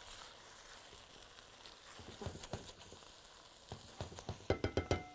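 Okra and lamb stew sizzling in a pot while a silicone spatula stirs it, scraping and knocking lightly against the pot. Near the end a quick run of piano-like keyboard notes comes in over it.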